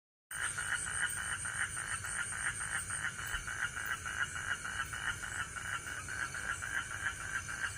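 A rapid, evenly pulsed animal call, about five pulses a second, repeating steadily. Under it is a steady high-pitched hum that fades a little about three seconds in.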